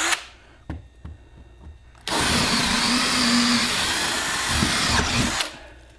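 Cordless drill with a large bit boring up through ceiling drywall into a wooden joist. It runs steadily for about three and a half seconds, starting about two seconds in, with a light knock shortly before it starts.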